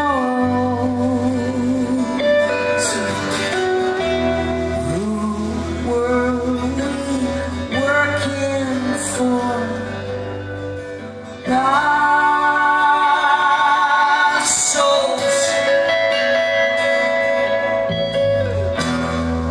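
Live rock band playing, with acoustic and electric guitars, bass guitar and drums, heard through the hall's PA. The music drops back a little, then comes in suddenly louder about halfway through.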